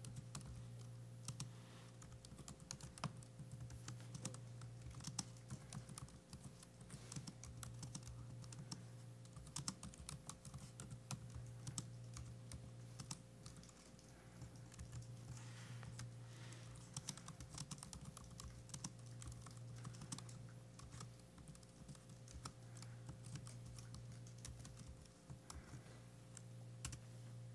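Computer keyboard being typed on: quick, irregular keystrokes throughout, faint, over a steady low hum.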